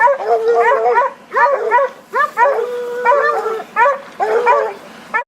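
Hunting dogs barking and baying, several voices overlapping in quick, repeated calls, which cut off suddenly at the end.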